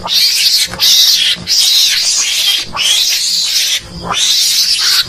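Loud mongoose (garangan) calls: a quick run of about six harsh, raspy screeches, each under a second long, with short breaks between them.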